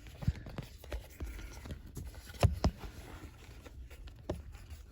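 Scattered clicks and knocks of hard plastic, with two sharper knocks about two and a half seconds in, as dashboard trim pieces are handled and refitted.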